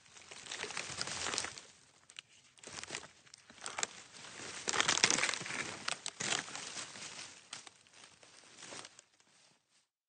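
Dry wood, twigs and small branches snapping and crackling in several runs of sharp cracks, dying away shortly before the end.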